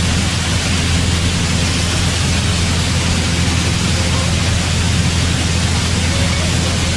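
Steady drone of a Piper light aircraft's piston engine and propeller in flight, heard inside the cabin: a constant low hum under a loud, even rush of air noise.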